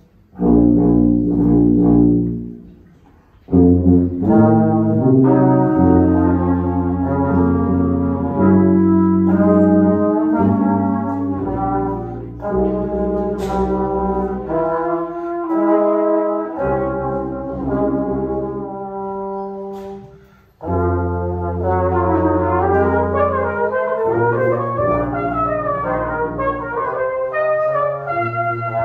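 A brass trio of flugelhorn, tuba and trombone playing together in held chords, with short pauses about three seconds in and again near twenty seconds. Near the end the upper line moves more quickly over the low tuba notes.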